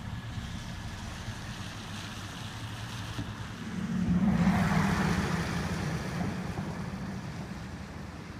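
A road vehicle driving past, swelling up about three and a half seconds in, loudest a second later, then fading away. Under it runs a steady low rumble.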